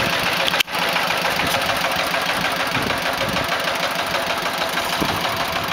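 Korean two-wheel walking tractor (gyeongungi) with its single-cylinder diesel engine running with a steady, rapid knocking beat as it moves the trailer. The sound cuts out for a split second just over half a second in.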